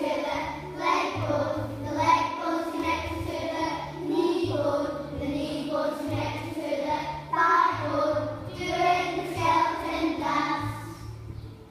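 A group of young children singing a song about how the bones are joined together, over a backing track with a repeating bass line. The singing dies away near the end.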